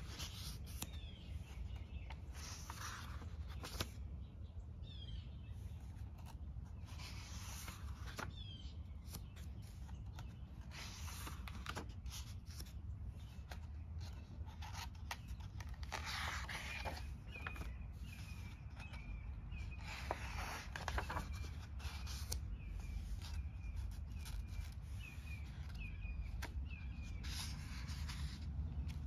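Paper pages of a hardcover notebook being turned by hand, rustling several times at irregular intervals. A bird chirps in the background, briefly at first and then repeatedly through the second half, over a steady low rumble.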